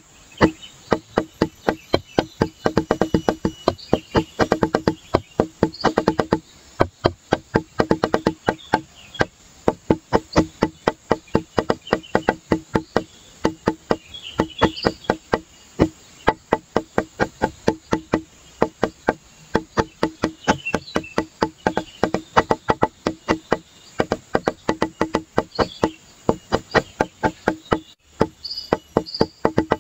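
Background music of fast, even wood-block-like clicking percussion with a repeated low note.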